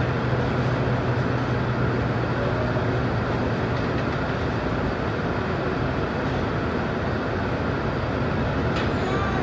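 Scania K230UB city bus engine idling while the bus stands still, a steady low hum heard from inside the passenger saloon, with traffic passing in front. A brief high squeak comes near the end.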